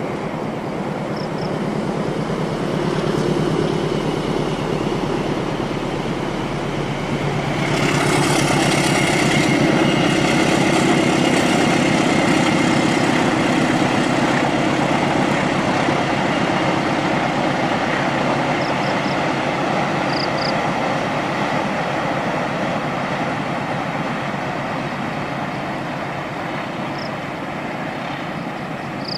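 A long train passing close by, its wheels running on the rails with a steady loud rumble that swells about eight seconds in and then holds.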